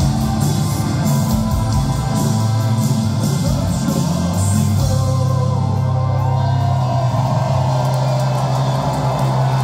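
Live rock band playing: electric guitars, acoustic guitar, bass and drums, with a singing voice. The cymbals drop out about halfway through while the bass and guitars keep going.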